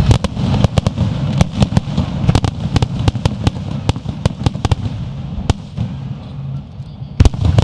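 Fireworks display: a rapid, irregular string of sharp cracks and bangs from bursting shells. It is dense for about five seconds, then thins out, with one heavy bang near the end.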